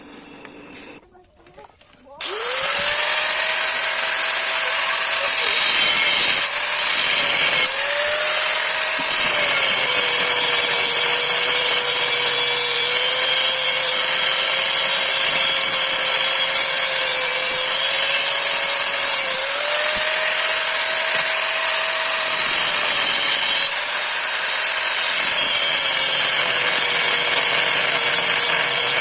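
An electric power tool starts about two seconds in and runs continuously, its motor pitch sagging and recovering as it is loaded, over a bright steady hiss.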